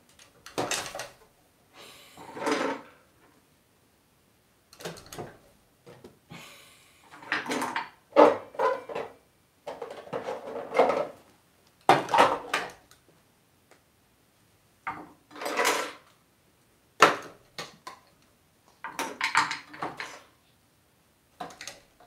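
Plastic toy cups and small toys clattering and knocking against a wooden drawer as an African grey parrot rummages through them with its beak and tosses them out. The clatter comes in a dozen or so short, irregular bursts with pauses between.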